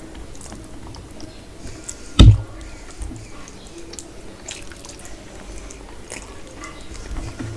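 A person chewing and biting mutton and rice close to the microphone, with wet, squishy mouth sounds and small clicks. About two seconds in, one loud, low thump.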